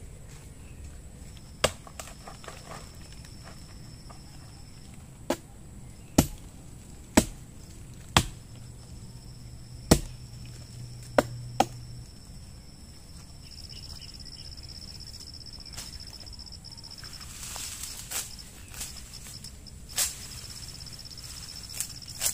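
About ten sharp chopping strokes at irregular intervals, most of them in the first half, with a steady high insect trill behind them.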